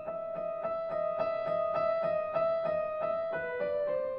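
Background piano music: a steady run of quick repeated notes, about four a second, over held higher notes.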